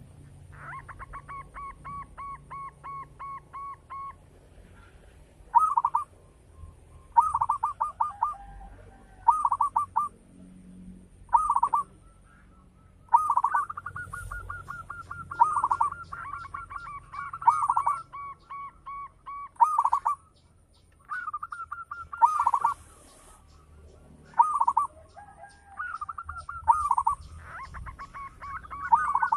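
Zebra doves (perkutut) cooing: phrases of rapid staccato coos, with louder phrases about every two seconds over softer, steadier trilling.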